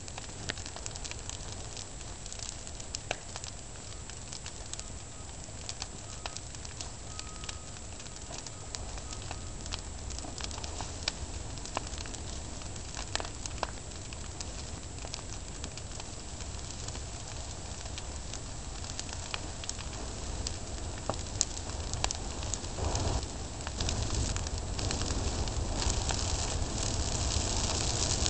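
Gasoline-lit brush-pile fire crackling, with scattered sharp pops. The crackle grows louder and busier over the last several seconds as the flames take hold.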